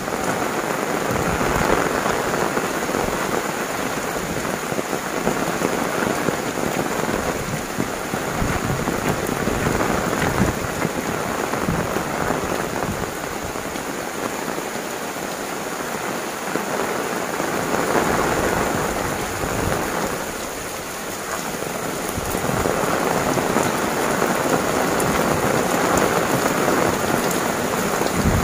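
Heavy tropical rain pouring down and pattering on the cloth umbrella overhead, a dense steady hiss that swells and eases, dipping briefly about two-thirds of the way through.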